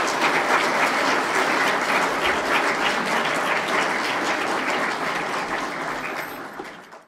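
A large seated audience applauding, dense steady clapping that fades out near the end.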